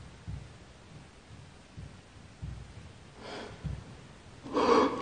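A person breathing out hard twice near the end, the second breath the louder, over a few soft low thuds.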